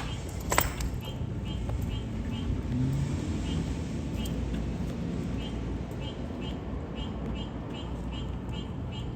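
Steady low outdoor rumble with a faint, regular ticking about two to three times a second. There is one sharp click about half a second in.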